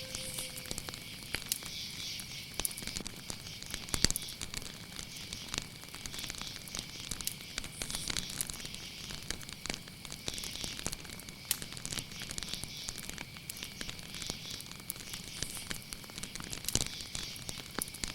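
Fire crackling with irregular pops and snaps, one louder pop about four seconds in, over a steady high insect trill, typical of crickets.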